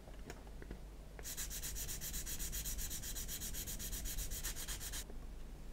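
Sanding stick rubbed quickly back and forth on a grey plastic model-kit part, in rapid even strokes. The strokes start a little over a second in and stop about five seconds in, after a few light clicks.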